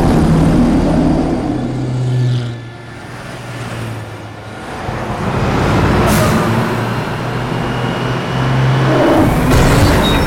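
Film soundtrack of police cars and a large truck driving: engines running under continuous road noise with low steady tones, dipping quieter for a couple of seconds in the middle before building back up.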